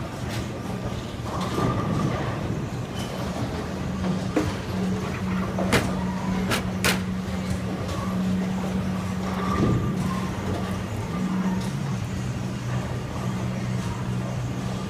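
Bowling alley ambience: a steady low hum and rumble, with a few sharp clacks about six to seven seconds in.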